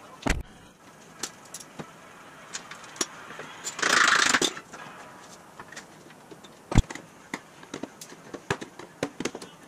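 Clinks and knocks of metal as a steel steering box, an early Ford unit, is handled and fitted against a car's frame rail, with a short scraping rasp about four seconds in and a single sharp knock near seven seconds.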